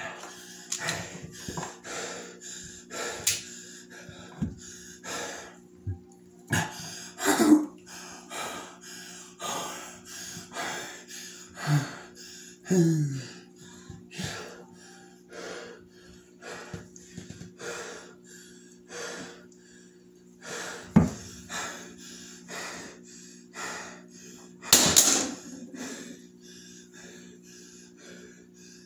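A man breathing heavily in quick, ragged puffs, with several louder gasps or groans that fall in pitch, over a steady low hum.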